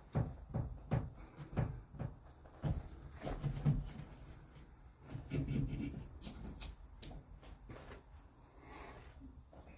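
Irregular light knocks, clicks and thumps with some rubbing, the sound of things being handled and moved about by hand, busiest in the first few seconds and again about halfway through.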